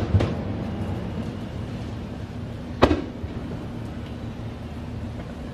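Aerial firework shells bursting with sharp bangs: one just after the start and another about three seconds in, each followed by a short echo, over a steady low background rumble.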